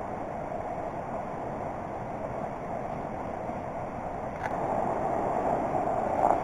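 Steady rush of a river flowing over rocks, growing louder after a brief click about four and a half seconds in.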